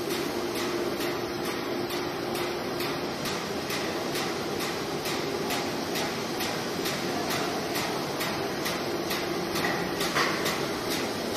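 Haosheng HS-1400A six-roll paper sheeter running, its cutter clicking evenly about three times a second over a steady machine hum with a constant tone.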